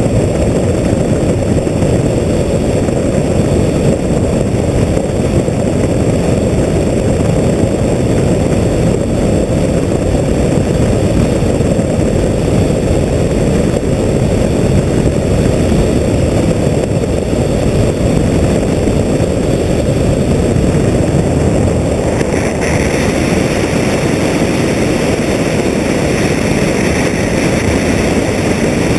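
Steady rush of airflow over a wing-strut-mounted camera on a Comet FK12 biplane gliding down to land after an engine failure, with no clear engine note in it. About three-quarters of the way through, a higher hiss joins in.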